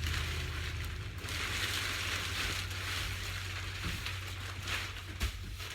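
Crinkly rustling of material being handled, over a steady low hum, growing louder about a second in.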